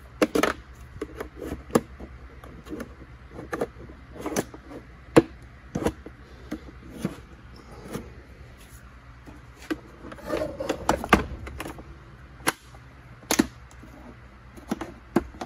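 Plastic housing of a Hoover SpinScrub carpet cleaner being handled and pulled apart: irregular sharp clicks and knocks of plastic parts, with a short spell of scraping and rubbing about two thirds of the way through.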